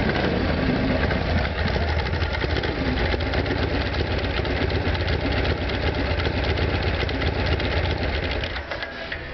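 1971 Harley-Davidson Shovelhead V-twin engine on a custom bobber, running steadily at idle; the sound drops off somewhat near the end.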